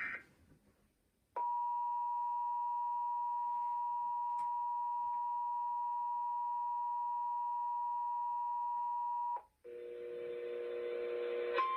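Emergency Alert System two-tone attention signal over the radio: a steady dual-pitched tone that starts about a second and a half in, holds for about eight seconds and cuts off abruptly. A hissy signal with a low hum then comes in, and a single steady higher tone starts just before the end.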